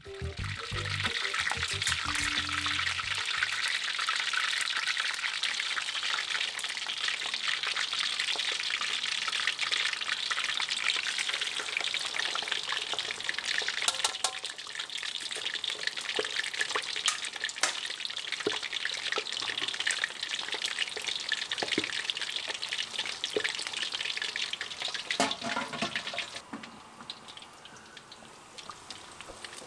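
Pork pieces deep-frying in hot oil in a wok: a dense, steady sizzle with many sharp little pops, dropping noticeably quieter a few seconds before the end.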